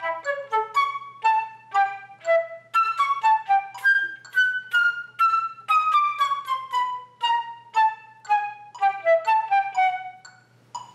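Concert flute playing a chromatic practice passage in short, separately tongued notes, mixing slower and quicker groups of notes in the eighth-and-sixteenth-note practice rhythm, with a long stepwise descent through the middle.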